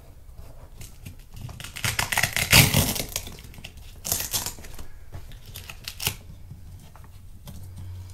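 Velcro straps on an inflatable boat's PVC tube being ripped open and pressed shut: a rasping rip about two seconds in, the loudest sound, then shorter rips near four and six seconds.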